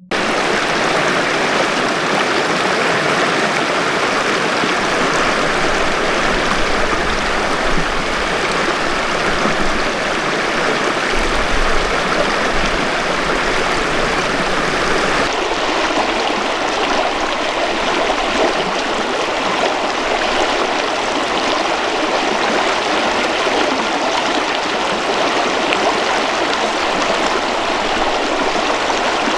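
Mountain river flowing: a steady rush of running water, its tone changing slightly about halfway through.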